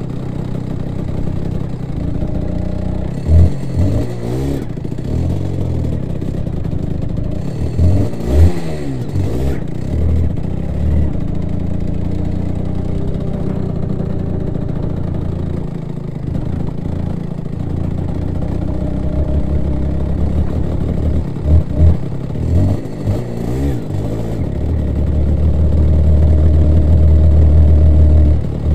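250cc twin-cylinder two-stroke superkart engine running near the end of its run-in: idling with several short throttle blips, then running louder and steadier in the last few seconds as the kart moves off.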